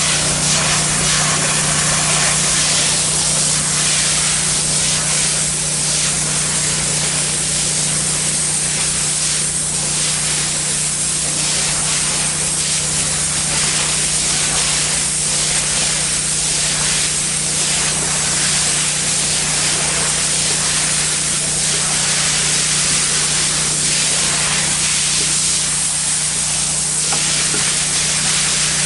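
Pressure washer spraying water at low pressure onto ceramic floor tile: a loud, continuous hiss that swells and fades in waves as the spray moves, over a steady low hum.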